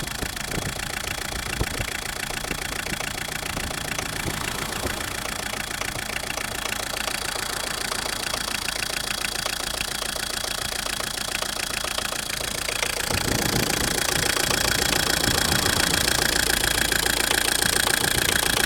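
Diesel engine running with a rapid, regular knock from its high-pressure fuel injection pump, the fault the sound is taken to signal. It grows louder about 13 seconds in.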